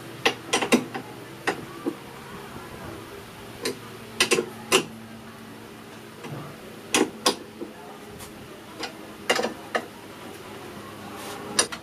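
Sharp clicks and clacks of metal hand tools and the scooter's hard plastic body panel being handled, coming singly and in quick groups of two or three at irregular intervals.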